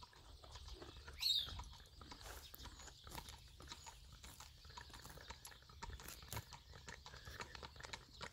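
Hooves of a grey horse and a small pony clip-clopping on a tarmac road, a quick run of sharp hoofbeats. About a second in comes a brief high-pitched squeak, the loudest sound.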